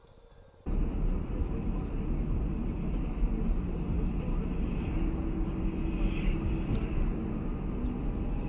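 Steady road and engine noise of a moving car picked up by a dashcam's microphone, cutting in abruptly about a second in.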